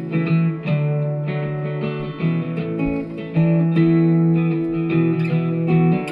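Guitar strumming chords, each held for about half a second to a second and a half before the next.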